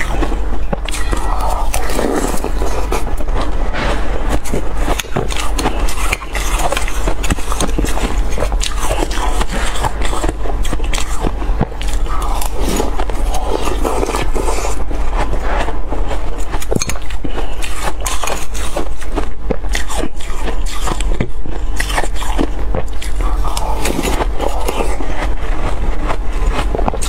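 Crushed ice being crunched and chewed close to a clip-on microphone, a dense run of crackling bites, with a metal spoon scraping and clinking in a glass bowl.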